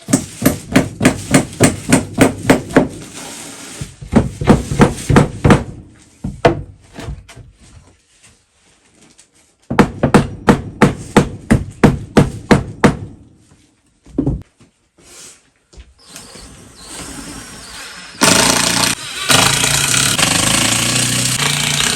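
Hand hammer striking in three runs of rapid, even blows, about four a second. Near the end a loud continuous noise takes over.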